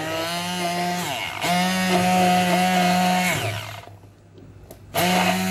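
Hand blender motor whining as it purées peeled tomatoes in its beaker, run in bursts. It sags briefly about a second in, runs on, then winds down with a falling pitch and stops a little past halfway, and starts up again near the end.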